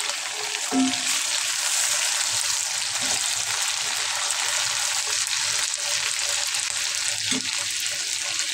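Hot oil sizzling steadily in a frying pan around freshly added chopped tomatoes and green chillies on fried onions.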